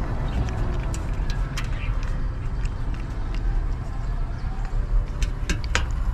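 Baby macaque lapping and slurping milk from a steel plate: scattered wet clicks and smacks, a few louder ones near the end, over a steady low rumble.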